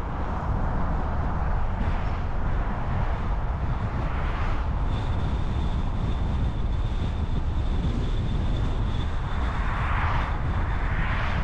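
Steady low rumble of road and traffic noise while driving on city streets. Passing vehicles swell about four seconds in and again near the end. A thin, steady high whine enters about five seconds in.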